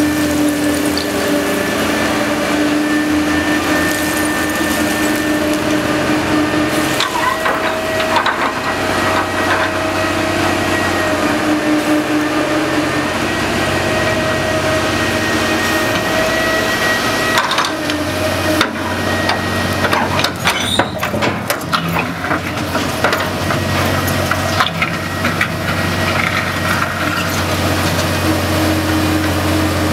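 Menck M260 cable dragline at work: its engine running steadily under load, with metallic clanking and rattling from the drag bucket's chains and rigging, heaviest about 7 to 9 seconds in and again from about 17 to 26 seconds in.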